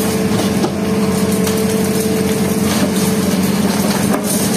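Hitachi Zaxis hydraulic excavator running steadily with a constant low hum, while its concrete pulverizer crushes a brick wall, giving a few short sharp cracks.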